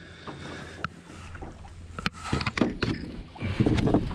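Jacket fabric rustling and bumping against a chest-worn camera, with a few sharp clicks, louder in the second half, over a steady low hum.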